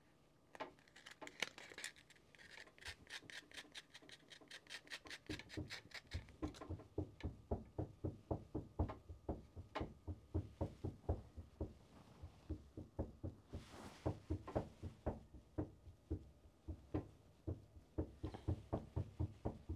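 Sandpaper rubbed back and forth over a fishing rod's tip at a newly glued tip-top: quick rasping strokes for the first six seconds or so, then slower, steady rubbing strokes.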